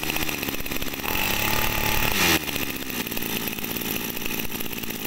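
Topsun 23cc two-stroke brush cutter engine running just after a pull-start test. It is revved up briefly about a second in, then drops back to a steady idle.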